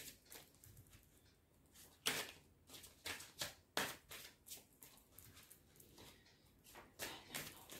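Angel message cards being shuffled and handled by hand: a string of faint, brief card flicks and slides, a few sharper ones about two seconds in, near four seconds and around seven seconds.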